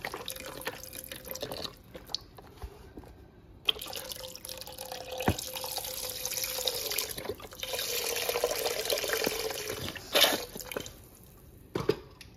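Chicken broth poured from a carton into a pot of soup, splashing in three pours with short breaks between. A couple of light knocks come near the end.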